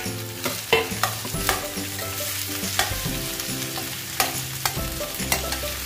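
Boiled potato pieces being stir-fried in hot oil with cumin and green chillies in a steel kadhai: a steady sizzle, with several sharp clinks of the steel spoon against the pan as they are turned.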